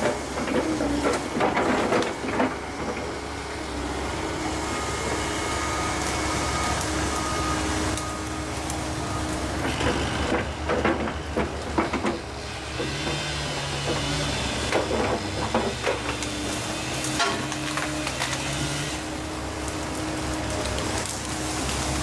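Volvo ECR145EL excavator running steadily under load, its hydraulic tone shifting in pitch as it works, with repeated sharp cracks and knocks of breaking wood and branches as trees are uprooted.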